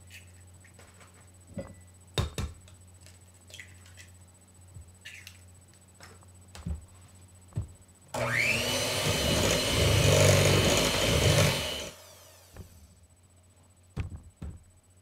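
A few light knocks and taps, then an electric hand mixer starts about eight seconds in with a rising whine, runs steadily for about four seconds as it beats eggs into peanut-butter cookie batter in a glass bowl, and winds down.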